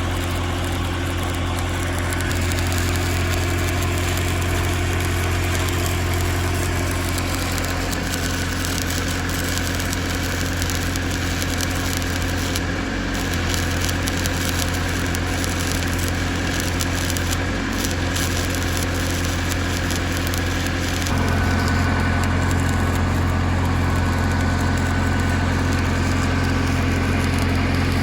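Stick welding with a 6010 electrode: the arc crackles and sizzles over a steady low machine hum. The hum steps up in level about three quarters of the way through.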